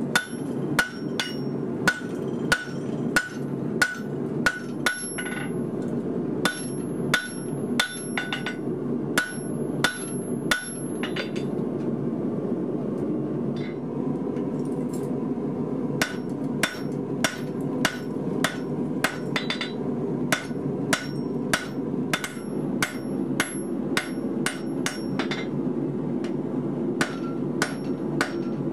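Hand hammer striking a red-hot steel bar on an anvil to draw out a taper, at a steady rhythm of about two to three blows a second, each blow ringing off the anvil. The blows stop for a few seconds around the middle, then resume. A steady hum runs underneath.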